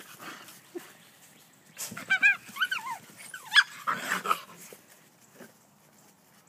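Basenji puppies whining, a handful of short, high, arching whimpers and yips bunched together from about two to four seconds in.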